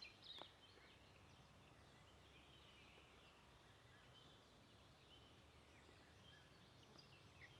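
Near silence: faint outdoor background hiss with a few faint, scattered bird chirps.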